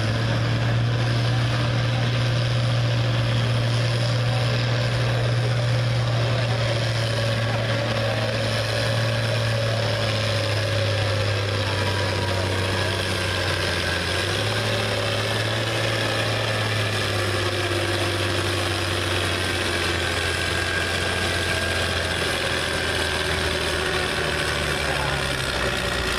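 International Harvester farm stock tractor's diesel engine running hard under load, pulling a weight-transfer sled: a steady drone whose pitch shifts about halfway through.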